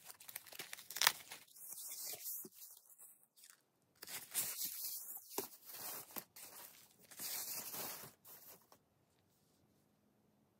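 Thin white foam packing wrap rustling and crinkling as it is handled and pulled off a leather shoulder strap, in uneven bursts with sharp crackles. It stops about nine seconds in.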